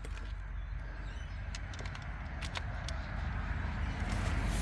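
Scattered light metal clicks and taps from tools handled at the excavator's track, one sharper click about a second and a half in, over a low steady rumble.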